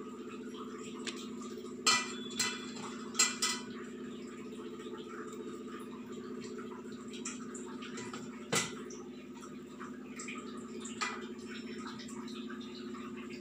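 Steady low hum with sharp clinks, like kitchenware knocking together. There is a cluster of four between about two and three and a half seconds in, a louder one just past the middle, and a fainter one later.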